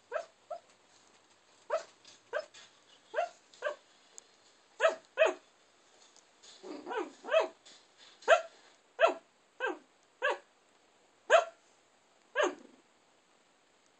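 A sleeping, dreaming Shiba Inu giving about seventeen short sleep barks, each dropping in pitch, in irregular ones and twos, stopping about a second before the end.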